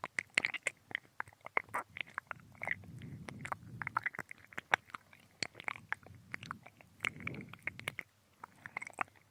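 Close-up wet mouth sounds of ASMR ear-licking: irregular tongue clicks and smacks with soft breathy swells between them, recorded binaurally right at the ear.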